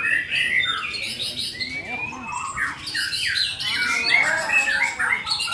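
White-rumped shama singing loudly in a fast, unbroken run of varied whistled notes and quick up-and-down glides, with a few lower, fuller notes about four seconds in.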